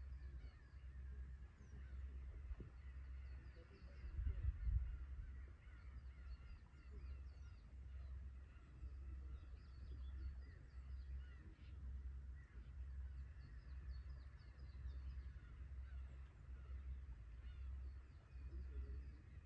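Black-tailed gulls calling over and over, faint and distant, above a steady low rumble of waves, which swells to a louder surge about four seconds in.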